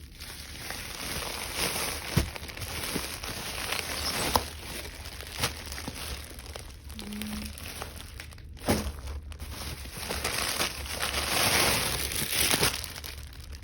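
Packing material crinkling and rustling as a parcel is unpacked by hand, with scattered clicks and knocks; the crinkling is loudest near the end.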